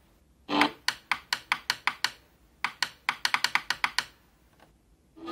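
A quick series of sharp clicks from a Britânia mini stereo as its FM tuner steps down the band. The clicks come about five a second at first, stop briefly, then speed up. A short burst of sound comes about half a second in.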